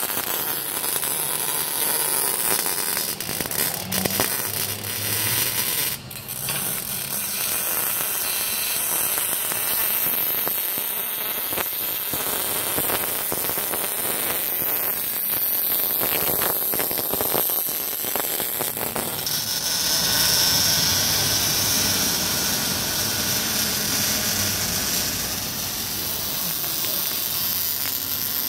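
MIG welder crackling and sputtering as exhaust pipe is welded under the car, with shop work noise around it.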